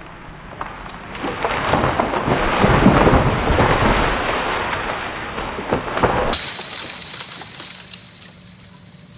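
A large beech tree giving way and crashing down as a tractor winch pulls it over: a long rush of cracking, splintering wood and breaking branches that builds from about a second in, is loudest about three seconds in, and dies away over the last few seconds. The trunk snaps in the middle.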